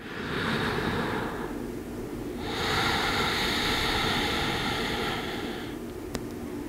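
A woman breathing slowly and deeply while holding a yoga pose: one breath of about a second and a half, then a longer one of about three seconds.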